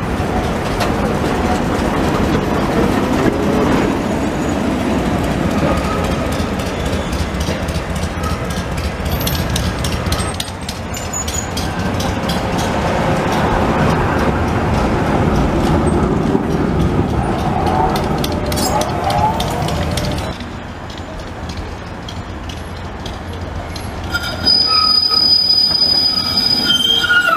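Electric trams running past on street rails: a steady rumble of wheels on track with the rattle of the cars. Brief wheel squeals come in about two-thirds of the way through. After a quieter spell, a louder high squeal from the wheels comes in near the end as a tram takes the curve.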